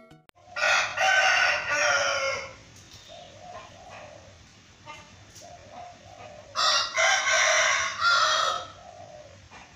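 Rooster crowing twice, each crow about two seconds long, the second starting about six and a half seconds in. Faint short clucks come between the crows.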